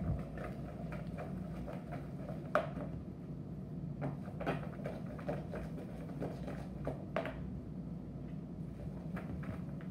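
A utensil stirring saucy ramen noodles in a clear plastic tub, with irregular taps and scrapes against the tub's sides over a steady low hum.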